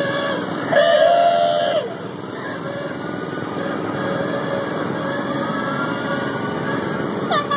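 Small motors of miniature old-time parade cars running as they drive past. About a second in a horn sounds for about a second, its pitch sliding down at the end, and another short horn note rises near the end.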